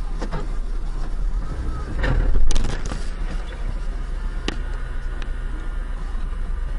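Steady low road-and-engine rumble of a moving car picked up by a dash camera. About two seconds in, a noisy swell builds into a loud impact about two and a half seconds in, and a single sharp knock follows about two seconds later.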